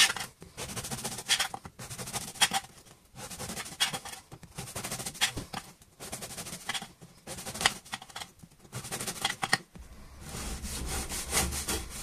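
Knife sawing through the hard crust of a stale French baguette, slice after slice: a dry, rasping scrape with each stroke, coming in short runs with brief pauses between slices.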